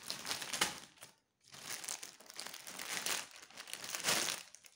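Plastic courier mailer and the polybag inside it crinkling as they are handled and pulled apart, in irregular bursts with a short break a little over a second in.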